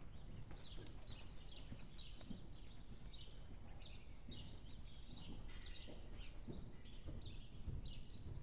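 Hoofbeats of a ridden Arabian mare on soft arena dirt: irregular dull low thuds with no sharp clop. Many short high chirps repeat above them.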